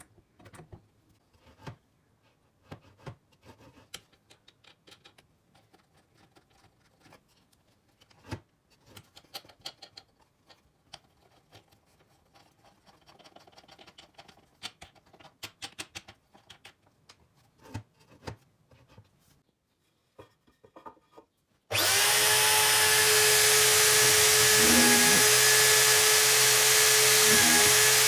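Scattered light clicks and knocks of parts being handled, then an electric drill starts abruptly about three-quarters of the way in and runs steadily, its tone dipping briefly twice.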